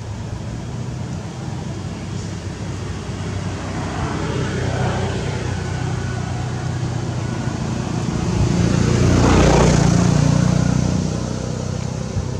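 Steady outdoor traffic noise with a vehicle passing by, rising to its loudest about two-thirds of the way through and then fading.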